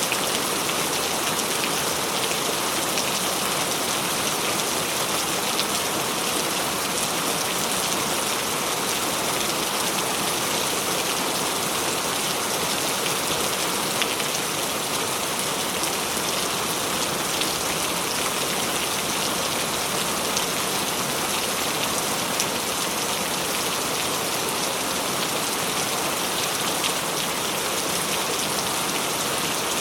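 Steady, dense rain falling on surfaces, a continuous hiss with many small drop ticks.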